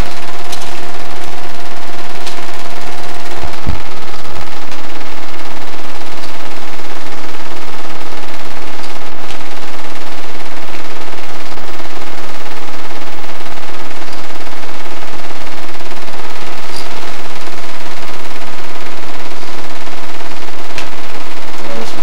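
8mm film projector running, a loud, steady mechanical clatter.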